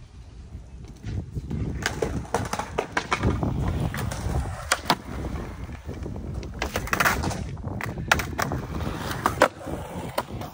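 Skateboard wheels rolling on concrete with a continuous rumble, broken by several sharp clacks of the board against the concrete pad.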